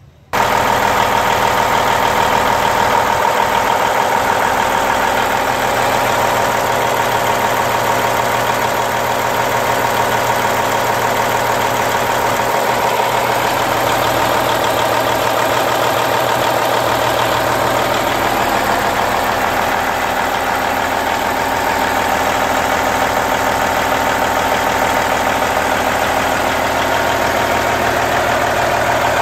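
Cummins N14 inline-six diesel of a 2000 Peterbilt 379 idling steadily, heard up close at the open engine bay. The engine sound comes in abruptly just after the start and then holds an even level.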